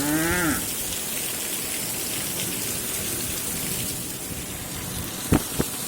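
Steady rain falling, an even hiss of drops on surfaces. Two sharp knocks come about five seconds in.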